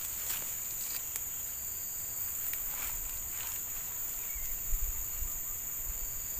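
Steady high-pitched insect chorus, an unbroken drone, with a few faint clicks and soft low thumps about two-thirds of the way in.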